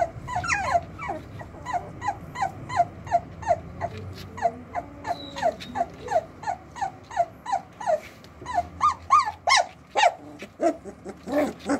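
A 24-day-old Doberman puppy crying in a steady run of short, high whimpers, about three a second, each falling in pitch. A few louder cries come near the end.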